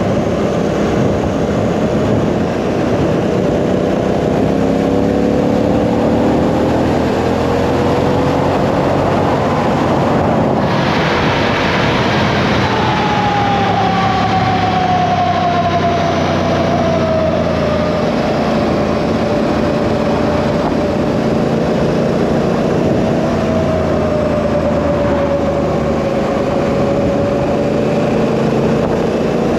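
Honda Africa Twin CRF1000L's parallel-twin engine running at road speed under a steady rush of wind on the microphone. The engine pitch rises as it accelerates, changes about ten seconds in, then falls slowly.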